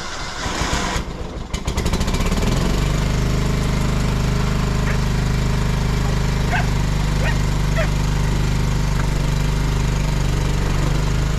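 John Deere lawn tractor engine starting: rough and uneven for about the first two seconds, then catching and running steadily.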